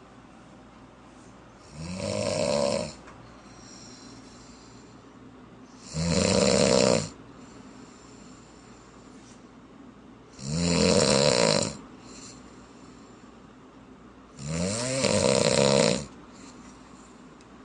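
Loud rhythmic snoring: four snores, about one every four seconds, each lasting a little over a second, with quiet breathing in between.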